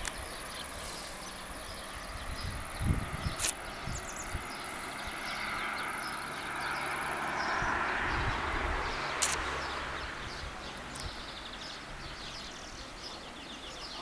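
Windy countryside ambience. Gusts buffet the microphone in low thumps, and a broad rush of wind swells to its loudest near the middle, then fades. Insects and birds chirp throughout, with two sharp clicks.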